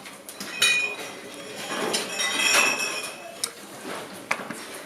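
Small metal clock parts clinking as wheels are fitted back into an antique Black Forest clock's wooden-plate movement: a few separate clinks, some with a short ringing after them, the longest about two to three seconds in.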